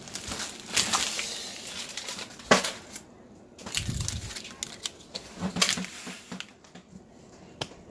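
Opened card-pack wrappers and cards being gathered and cleared off a table: crinkling and rustling with scattered sharp clicks and taps, and one dull thump about four seconds in.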